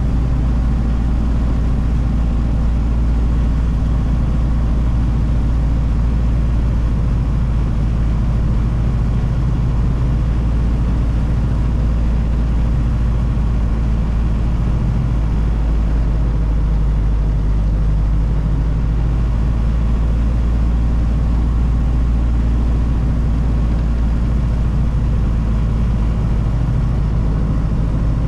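1932 Ford Model B's four-cylinder engine running steadily while the car drives along the road, heard from inside the cab.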